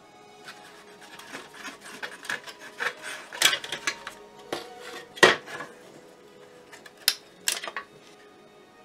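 Hard plastic model-kit parts (the hull halves of a 1/72 ship kit) handled and pressed together: scattered clicks, scrapes and rubbing, with two sharp plastic knocks a little past the middle, over faint background music.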